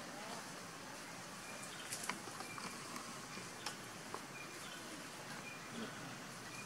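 Outdoor background: a steady hiss with a few scattered sharp clicks and faint, short, high chirps that repeat every second or so.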